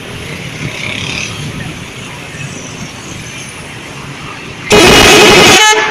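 Bus telolet horn sounding one loud blast about a second long, nearly five seconds in, over steady vehicle noise.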